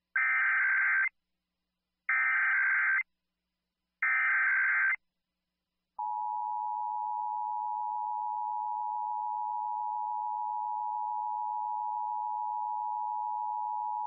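Emergency Alert System tones: three one-second bursts of the screechy SAME digital header, encoding a Required Monthly Test. About six seconds in the steady two-tone EAS attention signal (853 and 960 Hz) begins and holds.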